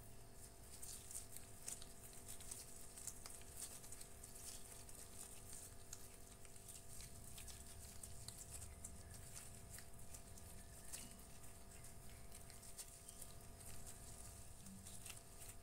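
Faint, irregular soft ticking and crinkling of gloved hands rounding a piece of bread dough against a wooden tabletop, over a faint steady hum.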